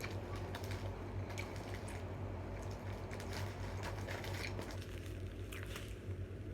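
Close-up mouth sounds of someone chewing a mayonnaise-heavy Whopper burger: wet squishing and smacking clicks, over a steady low electrical hum.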